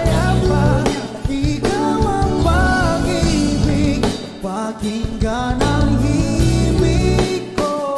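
Background song: a singing voice over instruments, with a steady beat and sustained bass notes.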